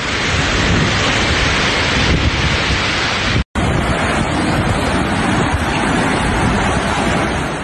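Rushing floodwater and heavy rain in a street: a loud, even rush of water noise. It cuts out for an instant about three and a half seconds in, then carries on as before.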